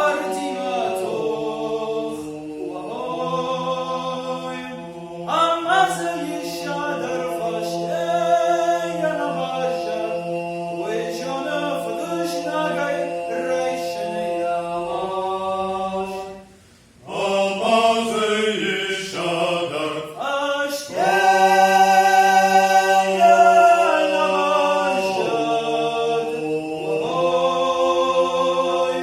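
Traditional Ossetian heroic song sung a cappella by a folk vocal ensemble: sung melody lines over a long held low drone from the choir. The singing drops away briefly about seventeen seconds in, then comes back in.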